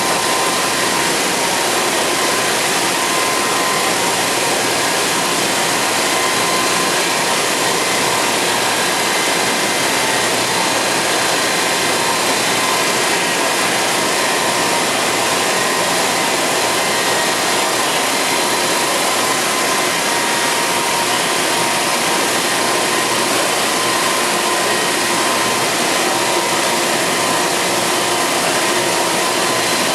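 Mazak Integrex 100IISY CNC lathe running: a steady, loud rushing machine noise with a few faint steady whines in it, unchanging throughout.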